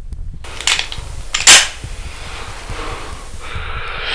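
Two sharp hits in a scuffle, under a second apart, the second the louder, over low rumbling movement; heavy breathing comes in near the end.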